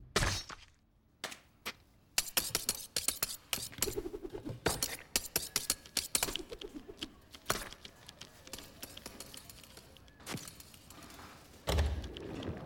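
Animated-film sound effects: a rapid, irregular clatter of sharp clicks and knocks like dishes and utensils, thinning out after a few seconds, with one heavy low thump near the end.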